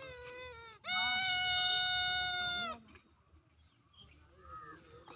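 A puppy crying: a short, fainter whimper that falls in pitch, then one loud, high-pitched cry held steady for about two seconds, then a faint whimper near the end.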